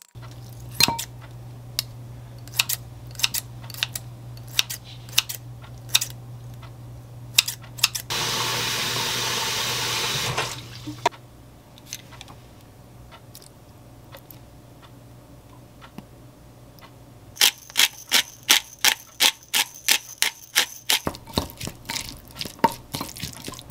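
Fork and wooden spatula mashing avocado in a glass mixing bowl, knocking and scraping against the glass in sharp, uneven clicks over a low steady hum. About a third of the way in a loud steady hiss runs for a couple of seconds, and later the spatula stirs the mix fast, clicking against the bowl about four times a second.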